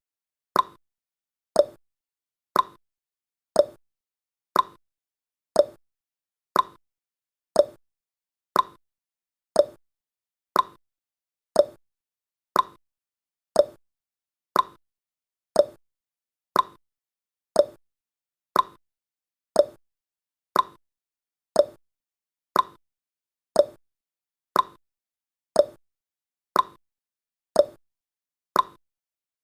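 Clock ticking sound effect marking each second of a countdown: one short, crisp tick a second, alternating between a higher tick and a lower tock.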